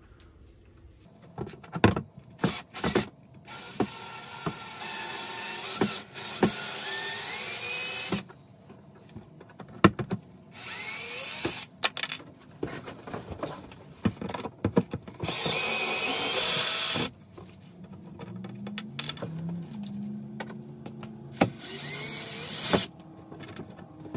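Cordless drill backing screws out of a wooden access panel: about four short runs of the motor, each a second or two to three seconds long, with sharp clicks and knocks of handling in between.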